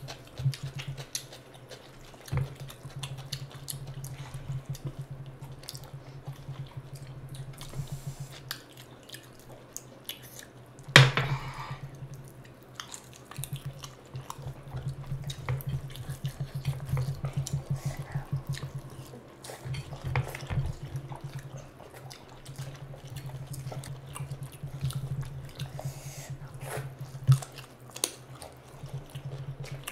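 Close-up eating sounds: wet squelching and smacking of hands mixing curry-soaked rice, with chewing. A sharp, loud click stands out about eleven seconds in, and another comes near the end.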